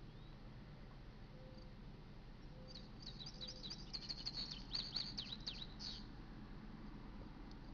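A songbird sings a fast run of high chirps for about three seconds, starting about three seconds in, over faint low background noise.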